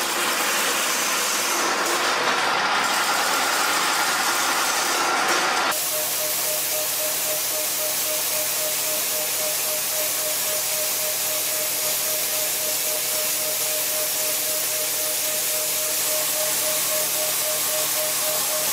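Chain-link fence weaving machine running, a dense clattering mechanical noise. About six seconds in it cuts abruptly to a CNC end mill cutting metal: a steady hiss with a constant, evenly pulsing tone.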